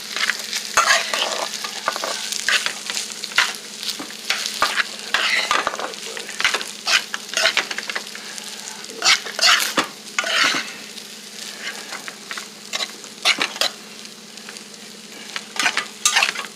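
Fried rice sizzling in a hot pan while it is stirred and turned, the utensil scraping and tossing the rice in irregular strokes over a steady frying hiss.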